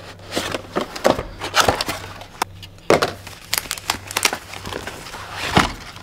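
Cardboard packaging being unboxed by hand: a box slid out of its sleeve, flaps pulled open and a paper wrap handled. It makes an irregular run of scrapes, taps and crinkles, with sharper snaps about three seconds in and near the end.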